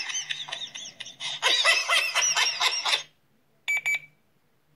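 iPhone 7 Plus playing ringtones through its small speaker: a ringtone's melody, quick rising and falling notes, stops suddenly about three seconds in. After a short gap a fraction-of-a-second snippet of another ringtone starts and is cut off at once, as if each tone is being previewed in turn.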